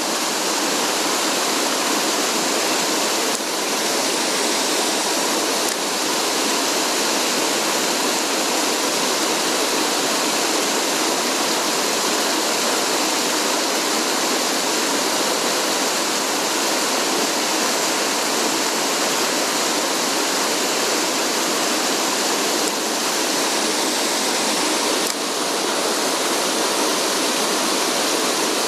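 Mountain stream water rushing steadily over rocks: a constant, fairly loud, even hiss.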